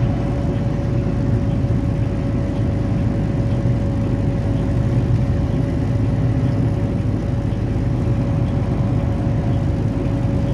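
Steady road noise inside a car travelling at highway speed: a low, even rumble of tyres and engine, with a thin steady tone above it.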